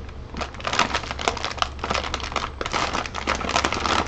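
Plastic packaging crinkling and rustling with many small irregular clicks as bagged parts and tools are handled during unpacking, over a steady low hum.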